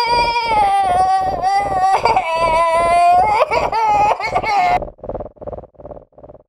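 A high, wavering wailing cry held for several seconds over a fast, even pulsing of about four beats a second. The wail cuts off suddenly near the end and the pulsing fades away.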